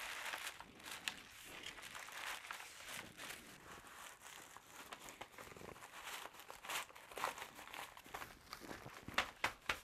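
Sewing pattern pieces and their paper envelope rustling and crinkling as they are handled and slid back into the envelope, with a quick run of sharper crinkles near the end.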